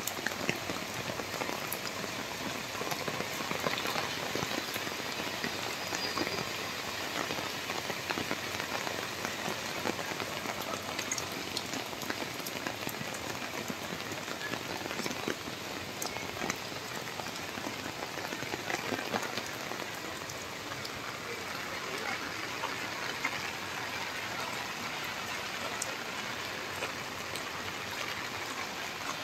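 Steady heavy rain falling on wet pavement and grass, with many small sharp drop hits.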